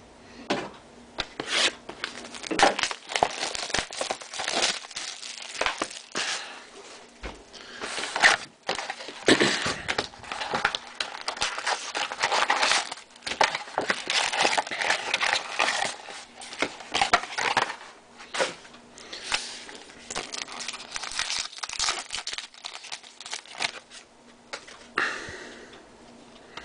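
Trading-card pack wrappers being torn open and crinkled, in irregular rustling, crackling bursts.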